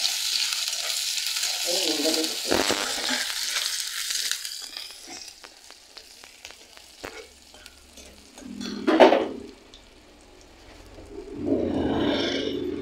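Chopped onion sizzling in hot oil in a metal kadai while a metal spatula stirs it. The sizzle fades after about four seconds, leaving light spatula clicks and scrapes. Two louder, unclear sounds come about nine seconds in and near the end.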